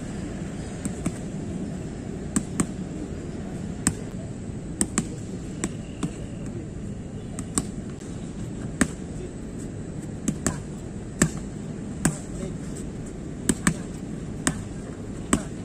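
Red boxing gloves smacking focus mitts in a punch-mitt drill: about twenty sharp slaps at uneven intervals, several in quick one-two pairs. A steady low hum runs underneath.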